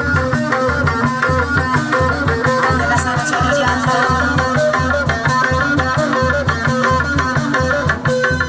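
Sundanese music playing: a steady kendang hand-drum rhythm under a busy, stepping melody of struck or plucked instruments.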